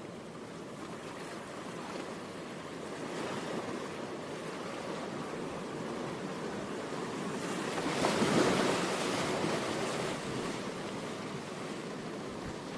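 A steady rushing wash of noise that swells to its loudest about eight seconds in, then eases back.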